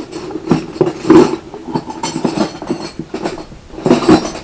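Metallic clunks and clinks, a run of short knocks, as a Lada Niva gearbox input shaft is rocked by hand to show its free play.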